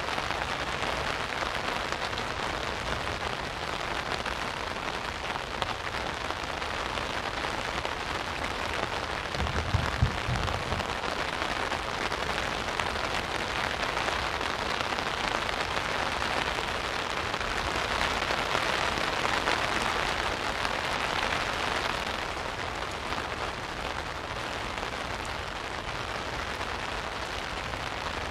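Rain falling steadily on an umbrella overhead: a dense, even hiss that swells a little past the middle and eases slightly near the end. A brief low thump comes about ten seconds in.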